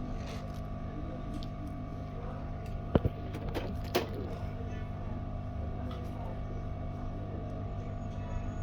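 Steady hum of a hot air rework station blowing while a part is desoldered, with two sharp clicks about three and four seconds in.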